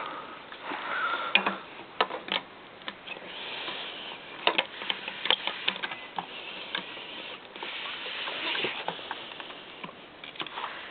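Irregular clicks, knocks and light rattles of plastic vacuum-cleaner parts being handled and fitted together as an attachment is connected to a Kirby Legend 2.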